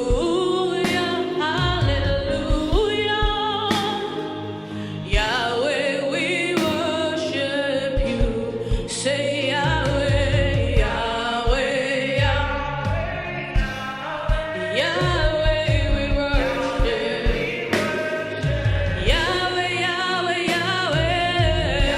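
Gospel worship song: voices singing long, sustained lines over a live band with a steady beat.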